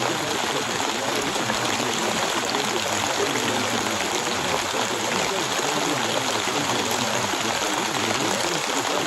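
Steady rain: an even, unbroken hiss of falling rain with no single drops standing out.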